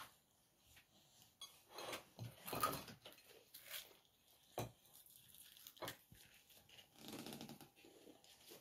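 Faint sounds of children eating crispy fried chicken at a table: quiet biting and chewing noises with a few sharp clicks, two of them standing out about halfway through.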